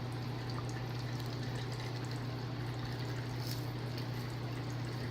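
Steady low hum with an even hiss of background room noise, with a few faint ticks over it.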